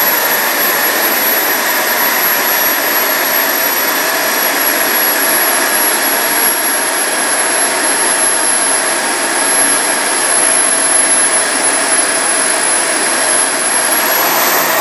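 Wren 44 model turboprop engines running steadily, turning three-blade wooden propellers, with a thin high turbine whine over a loud, even rush. The whine starts to rise right at the very end.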